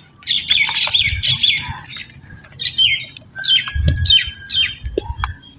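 Birds calling: two runs of short, squawky calls that each drop in pitch, with a few dull low thuds underneath.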